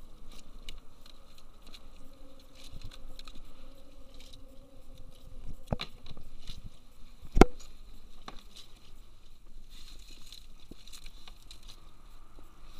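Scattered small clicks, taps and rustles of hands working a fish and pliers in a plastic kayak, with a sharp knock about seven seconds in, the loudest sound.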